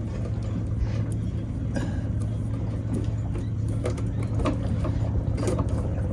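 A steady low mechanical hum, like a running motor, with scattered light clicks and taps over it.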